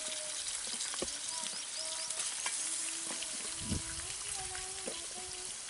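Wood cooking fire under a pot, crackling: a steady hiss with scattered crackles and pops. A dull thump comes a little under four seconds in.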